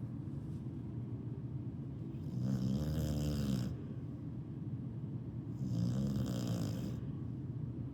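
Snoring: two long, buzzing snores about three seconds apart, each lasting over a second, over a steady low background noise. The snoring sounds like a chainsaw.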